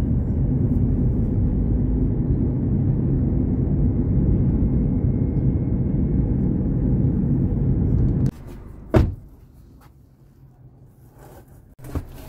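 Steady low rumble of a car being driven, road and engine noise heard from inside the cabin, which cuts off abruptly about eight seconds in. A second later comes a single sharp knock, the loudest sound here, and a fainter click near the end.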